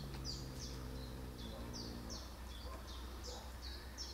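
Small birds chirping over and over, short falling chirps about three a second, above a steady low hum; a low droning tone fades out about two seconds in.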